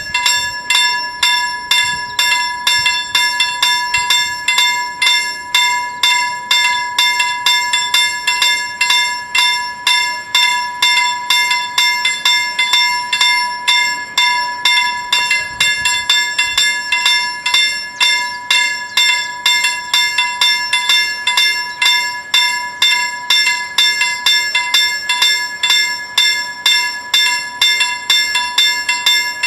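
Level-crossing warning bells ringing in a steady, rapid series of strokes, about two to three a second. This is the warning that a train is approaching the crossing.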